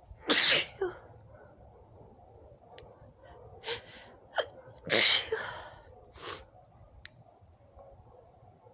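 A woman sneezing twice in an allergy sneezing fit, loudly, once near the start and again about five seconds in, with smaller breathy sounds between the sneezes.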